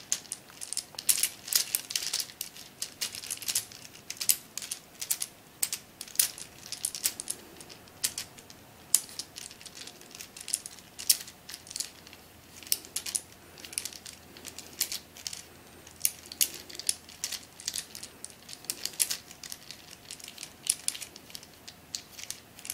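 Tower of Babel sliding-ball puzzle being scrambled by hand: irregular plastic clicks and clacks, a few a second, as its layers are turned and its balls slide and knock together.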